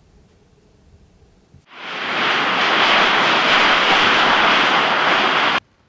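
Volcanic vent erupting a fountain of lava and gas: a loud, steady rushing roar that swells up in about half a second after a quiet start and stops abruptly near the end.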